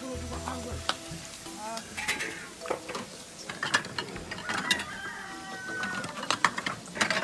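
Metal ladle and serving spoon scraping and clinking against a large stainless-steel basin and china plates as a stewed dish is served out. The sharp clinks come irregularly and are thickest near the end.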